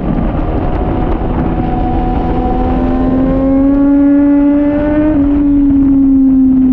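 2014 Triumph Daytona 675R's 675 cc inline-three engine running hard at high revs. Its pitch climbs gradually for about five seconds, then eases slowly down.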